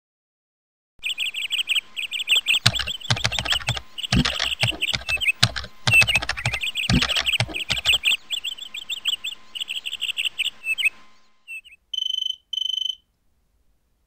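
Fast, high-pitched chirping trills, crickets or birds, repeating in rapid pulses, with a run of sharp clicks from about two and a half to eight seconds in. The chirping fades out about eleven seconds in, and two short steady beeps follow.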